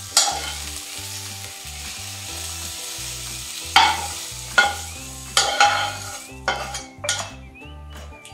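Fried vegetables being scraped out of a hot non-stick frying pan with a steel spatula into a pot of sambar: oil sizzling, with several sharp metal scrapes and knocks of the spatula on the pan about four to seven seconds in. The sizzle dies away near the end as the pan is emptied.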